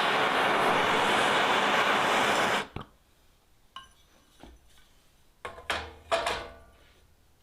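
Gas torch flame running with a steady rushing hiss, heating the back of a hardened steel nail header to draw its temper; the torch is shut off suddenly about two and a half seconds in. A few light metal clinks and knocks follow, the last two ringing briefly.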